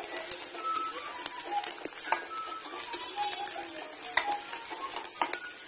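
Steel spoon scraping and clinking against a stainless steel kadai as sliced onions and green chillies are stirred, with a few sharp clinks about two and four seconds in. Soft background music with a simple melody plays underneath.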